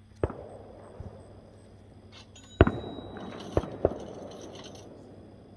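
Fireworks going off: a series of sharp bangs with echoing tails, one just after the start, a small one about a second in, the loudest about two and a half seconds in, then two more close together near four seconds.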